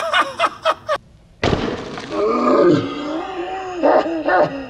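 A man laughing loudly and whooping, his laughter breaking into short rhythmic ha-ha pulses near the end.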